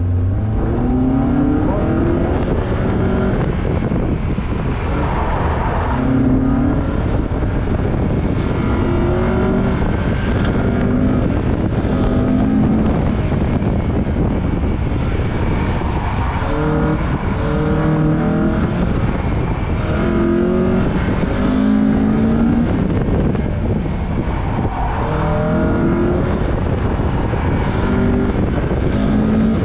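Honda car's engine revving hard, its pitch climbing and dropping back again and again as the car accelerates and backs off through the cones, over a steady road rumble.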